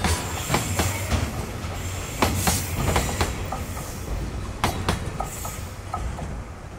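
Freight container wagons rolling past, their steel wheels clacking over the rail joints with brief squeals over a steady rumble. The sound falls away as the last wagon goes by near the end.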